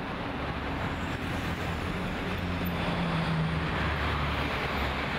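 Road traffic: a truck's engine and tyres swelling as it passes close by, loudest a little past the middle, over the general noise of a busy highway.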